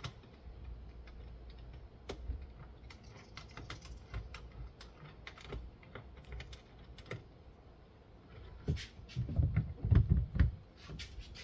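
Irregular small clicks and taps of screws being driven into a car's taillight housing by hand. Near the end come a few louder dull thumps.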